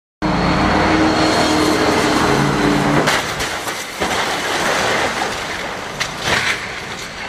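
A car crash: a loud, steady engine drone that steps in pitch for about three seconds, then a sharp bang about three seconds in, with further knocks and clatter about four and six seconds in.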